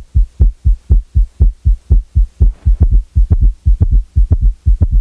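Heart sounds at a rapid rate with a summation gallop: the third and fourth heart sounds merge into one loud extra sound in diastole, midway between the second sound and the next first sound, giving a fast galloping triple rhythm of low thuds.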